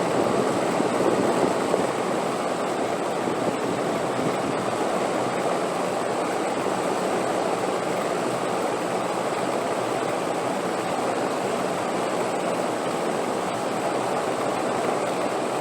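Steady rushing wind, an even dense noise, a little stronger in the first couple of seconds.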